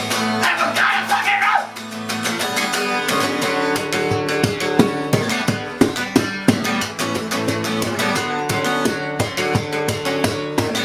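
Acoustic guitar strummed fast and hard in a steady, rapid rhythm, with a few heavier accented strokes around the middle.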